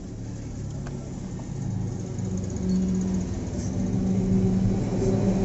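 A low, steady engine drone that grows gradually louder.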